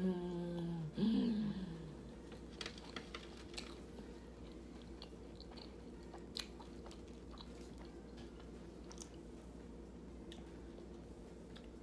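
A person bites into and chews a vegan barbecue 'pork' pastry pocket, close to the microphone: scattered faint crunches and mouth clicks. Two short hummed sounds come in the first two seconds.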